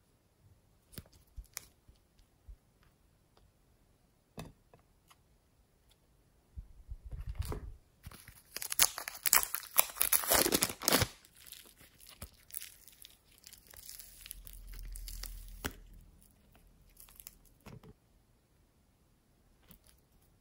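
A few light plastic clicks as a plastic dinosaur toy container is handled and opened, then a loud stretch of sticky crackling and tearing as green fluffy slime is pulled out of a small clear plastic cup, fading to softer crackling.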